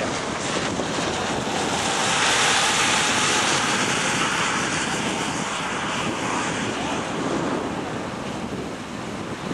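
Strong wind rushing and buffeting the microphone, swelling about two seconds in and slowly easing toward the end.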